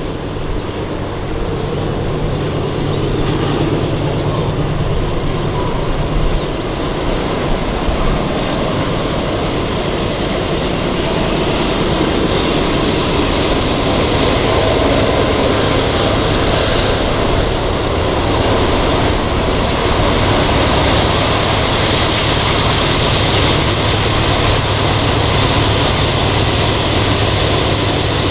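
Norfolk Southern freight train passing: a diesel locomotive's low drone under a steady rumble of wheels on rail, slowly growing louder.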